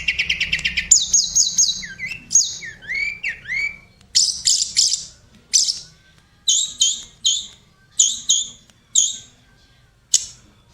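A tledekan gunung songbird singing: fast trills of high chirps at first, then separate short phrases of rising and falling whistled notes with pauses between them.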